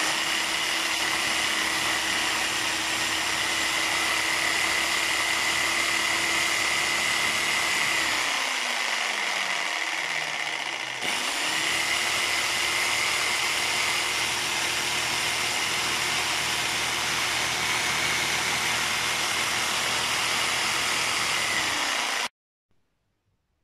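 Black & Decker RS1050E 1050 W corded reciprocating saw's electric motor running at speed with a steady whine, sparking heavily at the commutator through its vents, a sign of worn carbon brushes. About a third of the way in it winds down with a falling pitch, then a few seconds later speeds back up and runs steadily until it cuts off shortly before the end.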